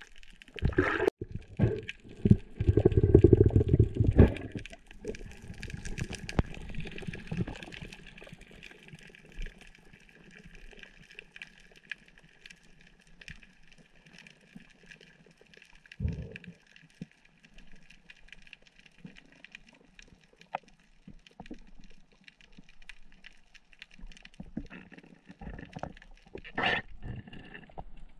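Underwater sound picked up through an action camera's waterproof housing: loud water churning and bumping in the first few seconds, then faint water hiss with scattered clicks and a faint steady high tone. A sharp knock comes about halfway through and another near the end.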